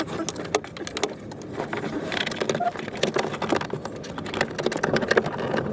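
Irregular clicks, taps and light rattles of parts and tools being handled during work on a car door.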